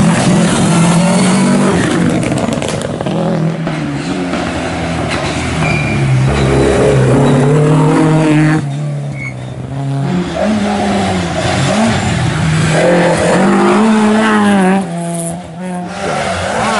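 Historic rally cars, among them a Mk1 Ford Escort, taking a tight bend one after another with their engines revving hard. The pitch climbs through the gears and drops sharply each time the driver lifts off, about halfway through and again near the end.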